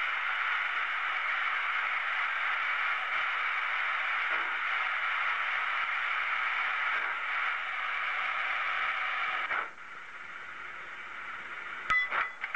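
A steady hissing noise that cuts off suddenly about nine and a half seconds in, followed by a few sharp clicks near the end.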